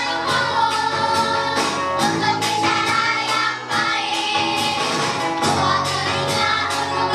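A group of children singing together over backing music with a steady beat, about two beats a second.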